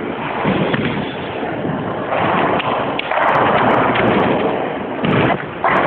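Bowling alley din: bowling balls rolling down the wooden lanes and pins clattering, a dense rumbling noise that grows louder for a few seconds from about two seconds in.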